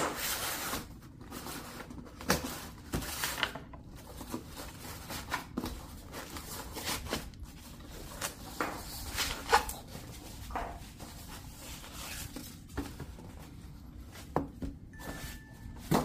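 Cardboard shipping box being cut open and unpacked by hand: irregular rustles, scrapes and taps of tape, cardboard flaps and packing paper, loudest near the start.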